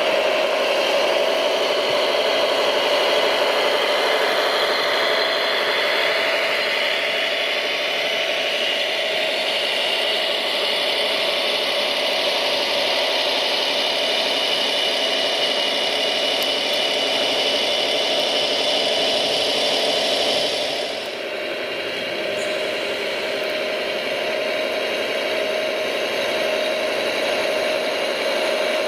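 Electric drive motors and gearing of radio-controlled model construction machines whirring steadily, with rattling. A high whine cuts off about twenty seconds in, and the level drops a little.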